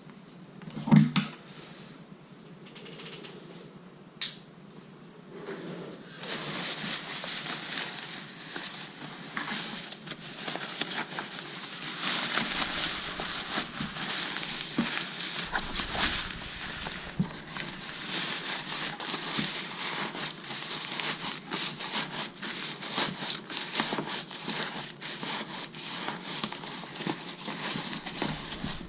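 Packaging and a fabric travel bag being handled and unpacked. There is a thump about a second in and a click near four seconds, then a continuous crinkling rustle with many small clicks from about six seconds on.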